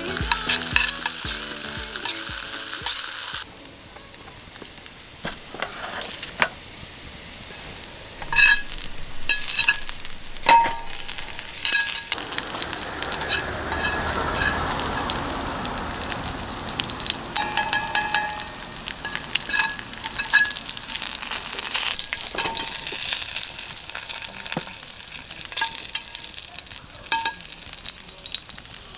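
Food frying in a pan, sizzling steadily, with a utensil clicking and scraping against the pan as it is stirred. The sizzle grows louder for a few seconds around the middle.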